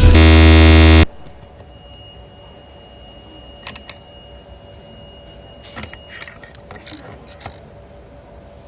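A loud electronic buzz for about a second, then faint light clicks and taps, a few scattered, over a soft steady hum.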